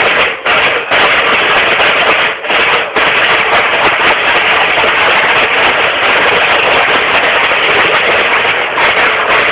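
Marching snare drums of a banda de guerra playing a cadence, loud and dense, with a few short breaks in the first three seconds.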